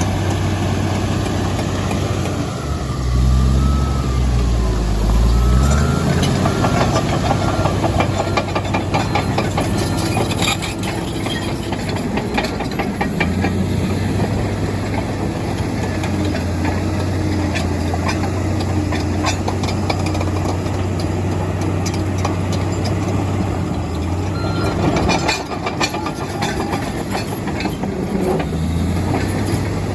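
Komatsu D85EX crawler bulldozer working, its diesel engine running steadily. The engine swells louder about three seconds in, and a clatter of metallic knocks follows from about six to thirteen seconds and again around twenty-five seconds.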